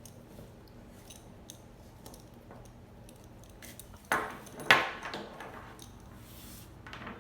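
Metal hardware of a leather leash clinking and rattling as the leash is handled and threaded, with light scattered clicks and then two much louder clanks about four seconds in, half a second apart.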